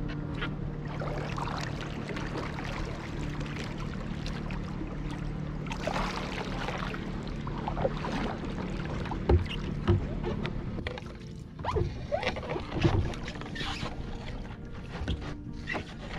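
Double-bladed kayak paddle dipping and splashing in calm water, with water dripping off the blades between strokes. A few louder splashes come in the second half.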